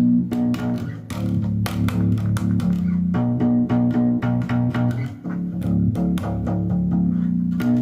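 Instrumental rock music led by electric bass guitar with guitar, playing a riff of held low notes and regular plucked strokes, without vocals.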